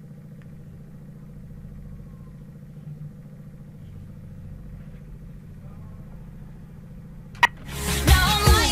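Steady low background hum of room tone. Near the end comes a single sharp click, followed by the start of a much louder sound with rising and falling pitch.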